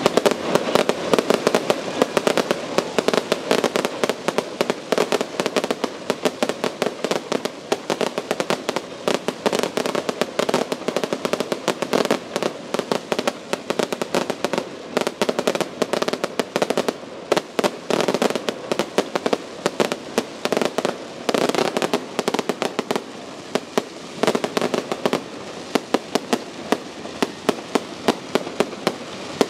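Fireworks going off close by: a rapid, continuous run of bangs and crackling pops, several a second, over a steady rumbling haze.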